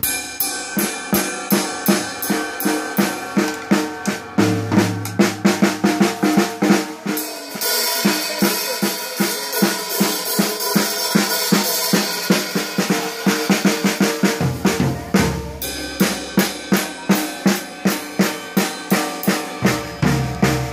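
A young child bashing on a Gretsch drum kit with Sabian cymbals: a steady stream of stick hits on snare and toms, about four a second, with cymbals washing over the hits through the middle.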